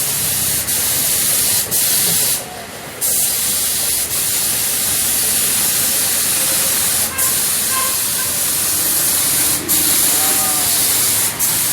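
High-pressure washer jet spraying water onto a truck: a steady hissing spray that cuts out briefly a few times, with a half-second break about two and a half seconds in.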